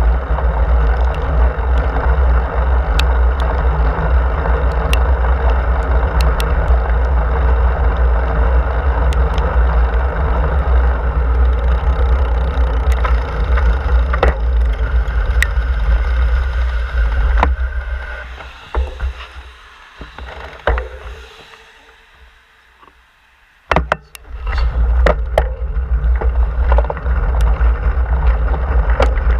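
Wind rumbling on the microphone of a camera mounted on a moving bicycle, with tyre noise on the pavement and scattered clicks. About two-thirds of the way through the noise dies away as the bike slows and stops at a road crossing, with a few clicks and a knock. Then the rumble builds again as riding resumes.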